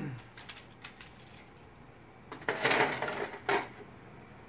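Plastic DJI Phantom 4 propellers clattering against each other and the tabletop as they are tipped out and laid down. There is a light knock at the start and a few small clicks, then a burst of rattling about two and a half seconds in, with a second, shorter rattle just after.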